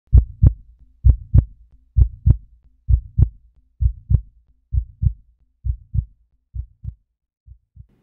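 Heartbeat sound effect: paired lub-dub thumps at about one beat a second, growing steadily fainter.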